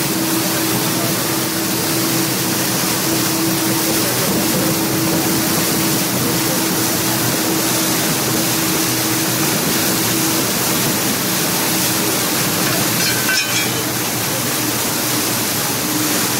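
Floodwater rushing and splashing in the wake of a vehicle driving through a deeply flooded street, with a steady engine hum underneath.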